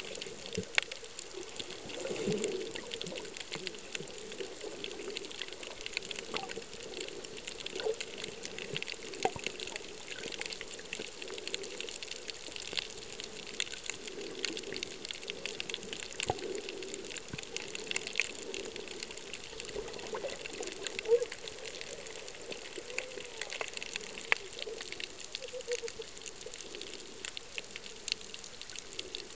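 Underwater sound through a submerged camera: a steady wash of moving water, dense with crackling clicks and a few louder pops.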